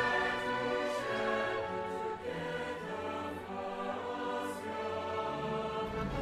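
Outro music of slow, held chords, with no speech over it.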